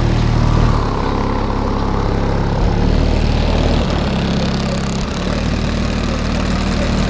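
Deep bass notes of music playing loudly through a car's DC Audio Level 4 12-inch subwoofer, the low notes changing every second or so.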